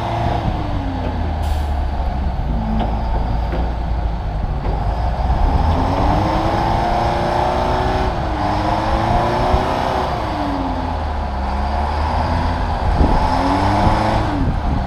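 A vehicle engine running under varying load, its pitch rising and falling several times, with a steady low rumble underneath.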